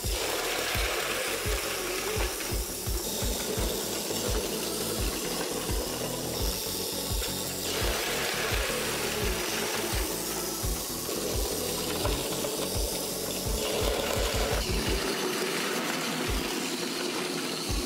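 Battery-powered Plarail toy train running along plastic track: the small motor whirs steadily while the wheels click rhythmically over the track joints.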